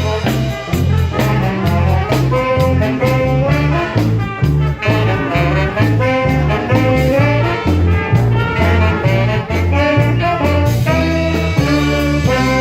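Brass band playing a lively swing-style tune, horns over a steadily pulsing bass line.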